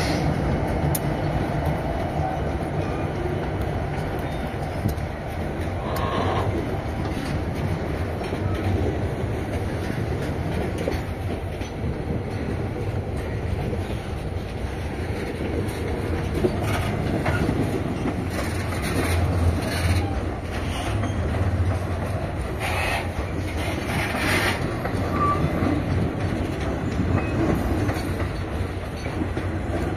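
A freight train passes close by. The last of its GE Evolution Series diesel locomotives runs by at the start, then grain hopper wagons roll past, their wheels clattering over the rail joints. A few short squeals come from the wheels along the way.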